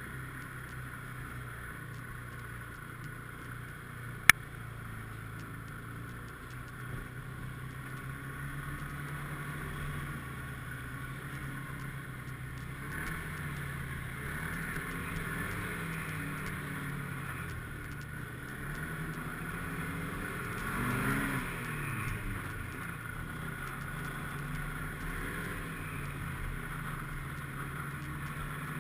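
Snowmobile engine running under way, its pitch rising and falling with the throttle and loudest a little past two-thirds of the way through. One sharp click comes about four seconds in.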